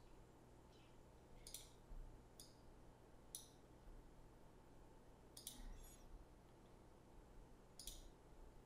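Faint computer mouse clicks, about five, spaced a second or two apart, over near-silent room tone with a low steady hum.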